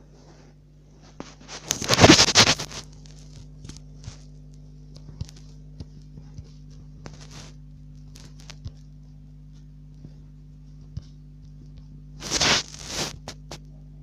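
A sleeping dog snoring: two loud snores about ten seconds apart, each lasting about a second, with faint small clicks between them.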